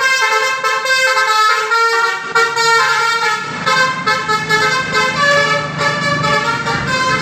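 A bus's Basuri telolet horn playing a melody: several horn tones sound together and jump to new notes every third to half second.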